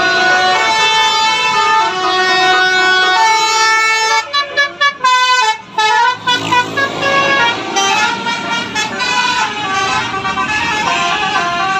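Bus basuri (telolet) multi-trumpet horn playing a tune in held notes that step from pitch to pitch, with a run of quick short toots about four to six seconds in.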